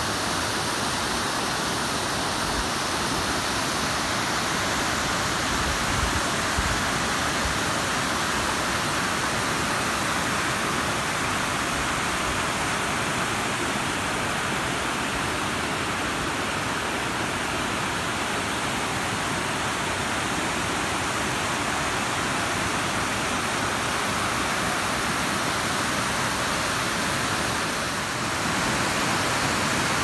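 Steady rush of the Barwon River pouring over the rock cascade at Buckley Falls, growing a little louder near the end.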